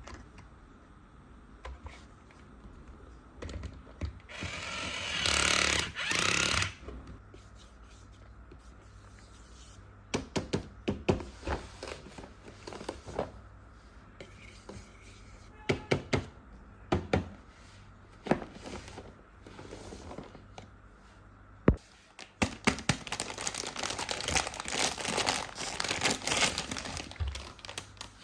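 Plastic toy tools and their packaging being handled: two short rustling bursts, then a string of sharp plastic clicks and taps, and near the end a longer spell of crinkling with clicks.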